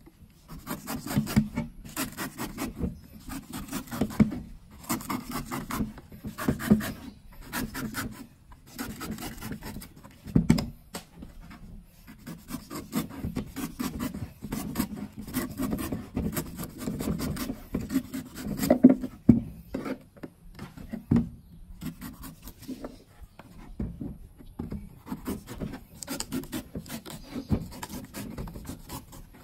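A large knife shaving the green husk off a young coconut in a run of irregular rasping, scraping cuts, with a few heavier thumps against the wooden table, the loudest about ten and nineteen seconds in.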